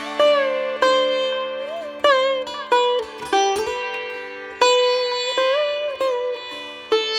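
Background instrumental music: a plucked string instrument playing separate decaying notes, some bending up and down in pitch, over a steady drone.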